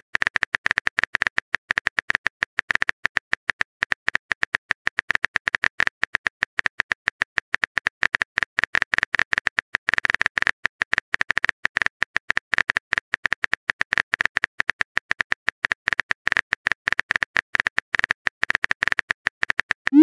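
Keyboard-typing sound effect of a texting-story chat app: a long run of rapid, uneven clicks as a message is typed.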